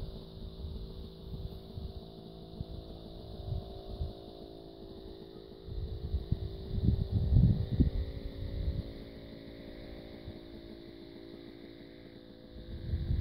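Wind buffeting the microphone in uneven gusts, strongest from about six to nine seconds in, over a steady, even-pitched motor hum.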